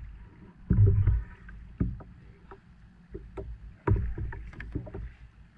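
Fishing gear being handled in a kayak: scattered clicks and knocks, with two dull thumps against the hull, one about a second in and one about four seconds in.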